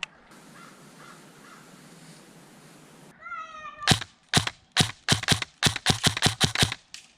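A cat meows once, then a Krytac Kriss Vector airsoft SMG fires a quick string of about a dozen sharp shots, unevenly spaced, over a little under three seconds.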